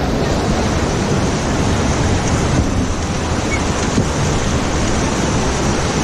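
Steady rush of whitewater rapids churning around an inflatable raft.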